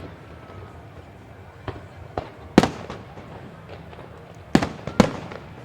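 Fireworks display: aerial shells bursting with sharp bangs, each followed by a rolling echo. About six reports: the loudest comes about two and a half seconds in, and a close pair comes near the end.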